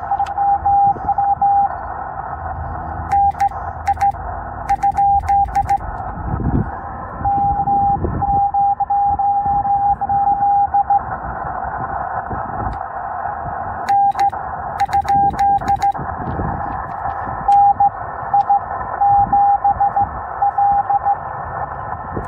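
Morse code (CW) from a Yaesu FT-891 ham radio transceiver on the 20-metre band: a single steady tone keying on and off in dots and dashes over band hiss. Sharp clicks come in two short stretches.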